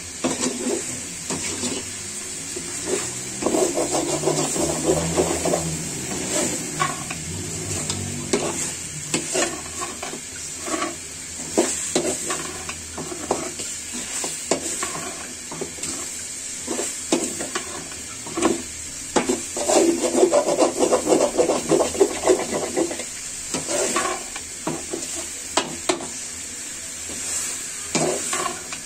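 Metal spoon stirring and scraping masala-coated chicken pieces around a metal pan on a gas burner, with repeated clinks and scrapes over a steady sizzle, as the meat and spice paste are sautéed together.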